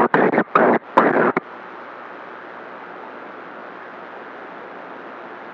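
CB radio receiving on 27.025 MHz: a loud, choppy voice transmission through the speaker cuts off about a second and a half in, leaving the steady hiss of open-squelch static.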